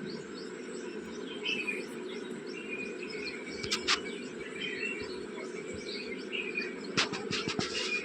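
Small birds chirping in short, scattered calls over a steady low background hum, with a few sharp clicks near the middle and toward the end.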